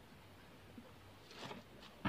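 Near silence: room tone, with one faint, brief rustle about one and a half seconds in.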